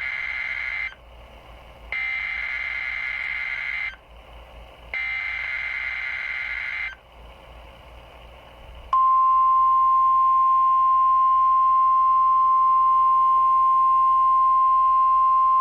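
NOAA Weather Radio Emergency Alert System test signal. Three buzzy digital SAME header bursts sound about a second apart, with radio hiss between them. About nine seconds in, the steady 1050 Hz warning alarm tone comes in, louder than the bursts, and holds on one pitch.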